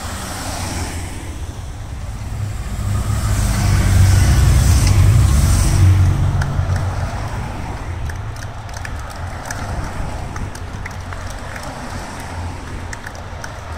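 A slow convoy of hearses and cars passing close by on the road, engines and tyres rumbling; the rumble swells as a hearse goes past about four to six seconds in, then settles to a steadier passing-traffic noise.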